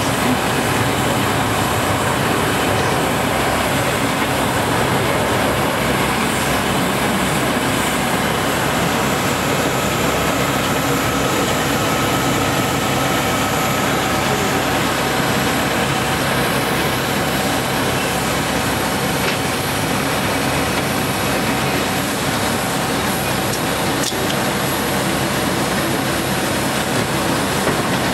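Steady jet-aircraft noise on an airport apron beside a parked Bombardier CRJ-700: an even rush with a constant whine, unchanging in level throughout.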